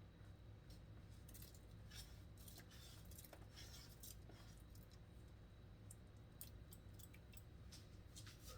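Near silence: a low steady hum with a scattering of faint light clicks.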